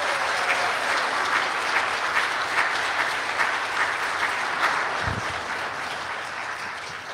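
Congregation applauding, a dense clapping that starts just before and slowly tapers off near the end, with a brief low thump about five seconds in.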